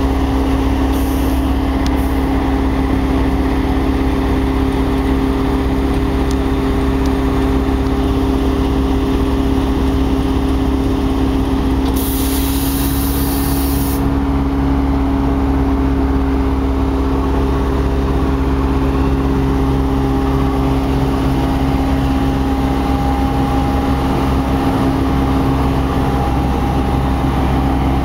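Diesel-electric locomotive engine idling steadily with a deep rumble and a constant hum. About twelve seconds in, a two-second hiss of released compressed air sounds.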